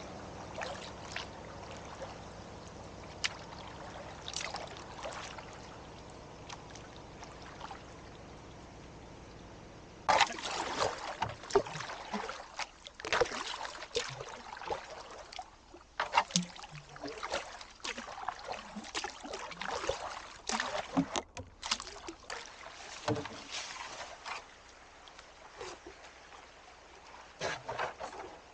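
Canoe paddling: a paddle dipping and pulling through the water with splashes, drips and knocks against the canoe. For about the first ten seconds a steady rush of water or wind fills the sound; after that the irregular splashes and knocks take over.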